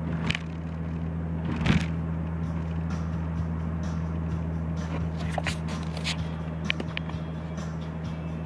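Steady low drone of a car driving, heard from inside the cabin, with a few light clicks and knocks scattered through it.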